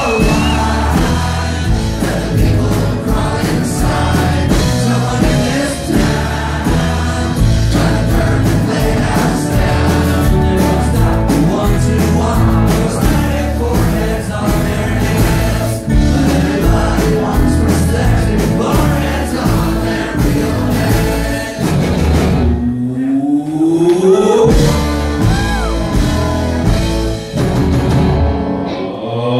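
A rock band playing live with a male singer. About three-quarters of the way through, the drums and bass drop out under a long rising glide in pitch, and a second rising glide comes near the end.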